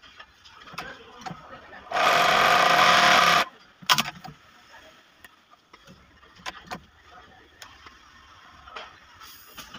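Industrial flatlock sewing machine stitching at speed in one burst of about a second and a half, starting and stopping abruptly. Scattered light clicks come before and after it.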